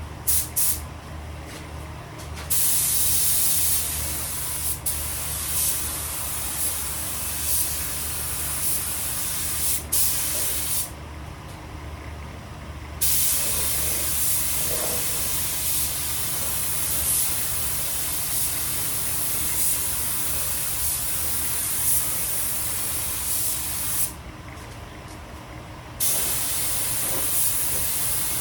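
Compressed-air paint spray gun hissing in long spraying passes, stopping twice for about two seconds when the trigger is let off. A steady low hum runs underneath.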